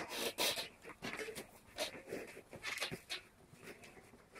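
Cardboard shipping box being handled and its flaps worked open: irregular rustling and scraping of cardboard.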